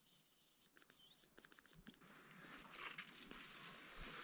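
Hazel grouse decoy whistle blown close by: a long, thin, very high whistle, then a dipping note and a few short chirps that stop about two seconds in, imitating a hazel grouse's call. Faint rustling follows.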